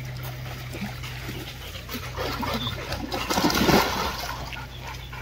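Water splashing as a Labrador retriever moves through it, swelling to its loudest about three and a half seconds in.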